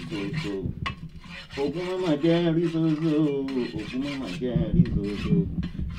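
Machete blade being sharpened by scraping it back and forth on a concrete floor: a repeated rasp of steel on rough stone.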